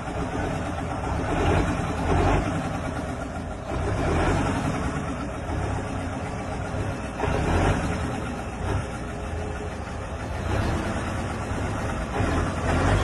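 An old FNM (Fenemê) truck's diesel engine running, its sound swelling louder several times as if the throttle is being blipped.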